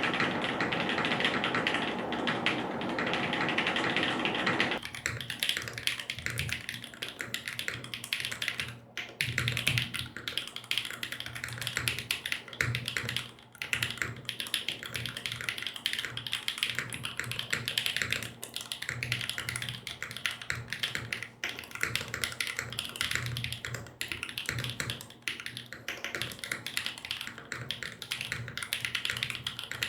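Continuous typing on a mechanical keyboard: an OTD 356CL with an aluminium plate, Kailh BCP switches and GMK Dualshot keycaps, a steady stream of keystroke clacks. About five seconds in the sound turns deeper, with a low thud carried through the table.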